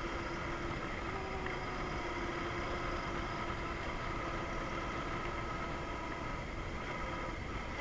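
Yamaha DragStar Classic's V-twin engine running steadily at cruise, its note holding an even pitch, under a steady rush of wind and road noise.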